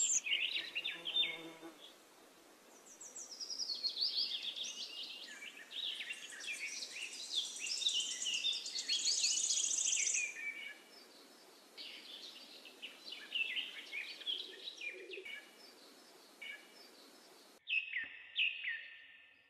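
Birds chirping and singing: many short, quick calls that rise and fall in pitch, clustered in busy runs with short lulls between them.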